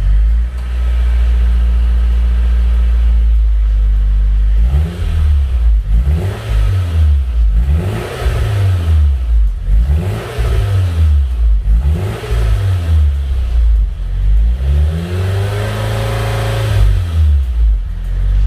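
Nissan S14's four-cylinder engine, breathing through a mismatched homemade exhaust with a Magnaflow muffler and a cheap centre muffler. Just started, it idles steadily at first, then is revved in a series of quick blips, with a longer rev near the end, and drops back to idle.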